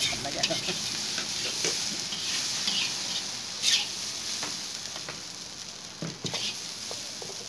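Chicken fried rice sizzling in a large wok while a metal spatula stirs it, with sharp scrapes and clinks of the spatula against the pan, the loudest a little past halfway.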